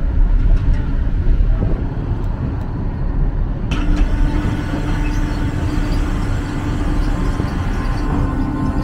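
Large passenger ferry's engines and propellers running with a deep, steady rumble, the propellers churning the water at the stern. About four seconds in, a steady mechanical hum joins the rumble.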